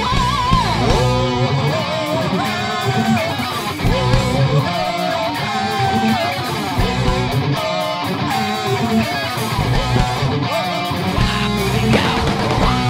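Heavy metal band playing live: a lead electric guitar plays wavering, bent notes over rhythm guitar, bass and drums.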